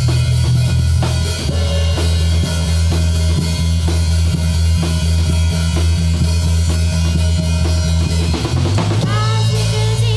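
Rock band playing live in an instrumental passage: drum kit keeping a steady beat over sustained electric bass notes, with guitar. Near the end the bass shifts to a higher note and a bending, sliding melody line comes in.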